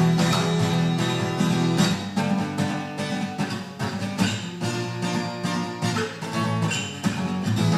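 Acoustic guitar strummed in a steady rhythm, playing the instrumental closing bars of a song without singing.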